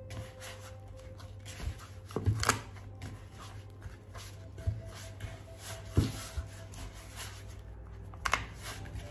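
Hands kneading a flour dough in a plastic mixing bowl: irregular soft squishing and rubbing, with a few sharper knocks, the loudest about two and a half seconds in and at six seconds. A steady low hum runs underneath.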